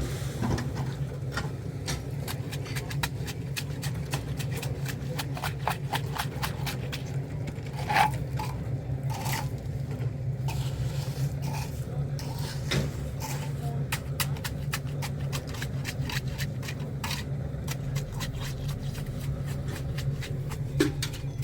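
A steady low machine hum with frequent scraping and clicking over it, a sharper knock about eight seconds in.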